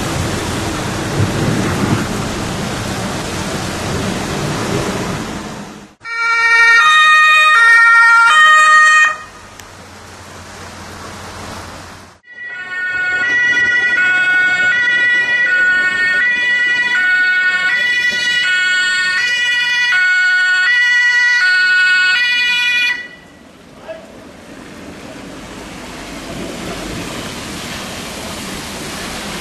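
Heavy rain pouring down, then German two-tone emergency-vehicle horns (Martinshorn) sounding, switching back and forth between a high and a low pitch. The horn comes in two stretches, each starting and stopping abruptly, before the rain returns.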